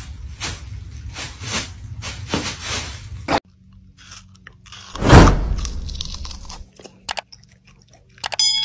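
A dog biting into a slice of watermelon with one loud crunch about five seconds in, then chewing. Before it, a regular rhythmic noise of about two to three strokes a second stops suddenly; near the end comes a short chime.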